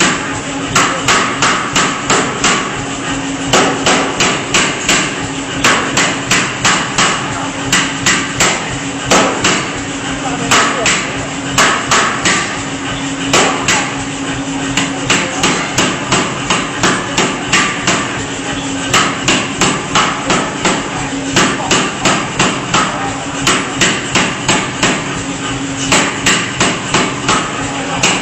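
C41-150 pneumatic forging hammer striking repeatedly, about three blows a second in short bursts of several strikes with brief pauses between them. A steady hum runs underneath.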